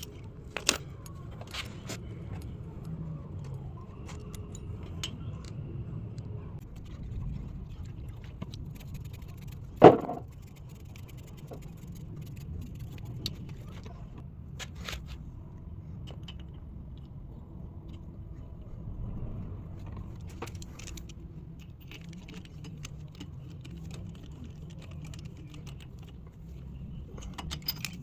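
Metal tools and a spark plug being handled, making scattered clinks and light scrapes, with one loud knock about ten seconds in, over a low steady rumble.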